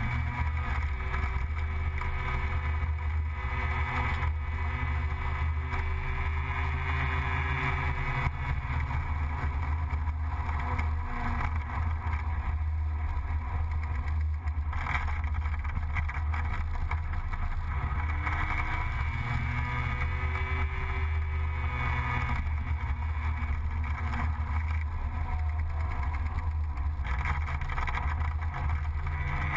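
Gilera Runner 180 scooter's engine running under way, its pitch rising and falling with the throttle through the bends, over a steady low rumble of wind on the onboard microphone.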